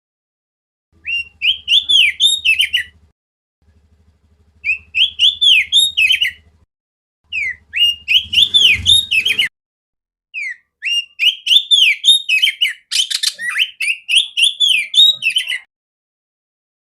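Oriental magpie-robin (kacer) singing loud, clear song: four phrases of quick, arching whistled notes, each a few seconds long, with short pauses between them and the longest phrase last.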